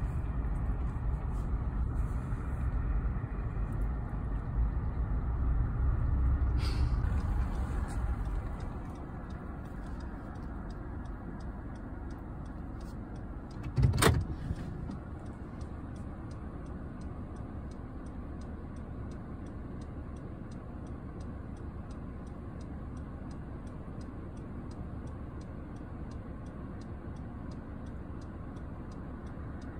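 Low rumble of a car heard from inside the cabin, stronger for the first eight seconds and then quieter, with one sharp knock about fourteen seconds in and faint regular ticking through the rest.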